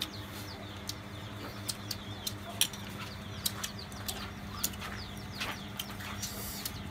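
Small birds chirping in short high notes, with scattered sharp clicks and knocks at irregular intervals over a low steady hum.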